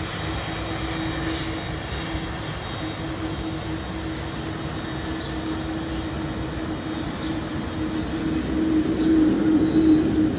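Airbus A310 cargo jet's turbofan engines running as it taxis slowly along the runway: a steady rushing hum with a low drone and a faint high whine, growing louder over the last couple of seconds.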